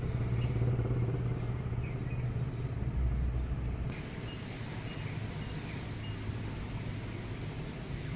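A steady low engine hum that drops off about four seconds in, with faint short high chirps over it.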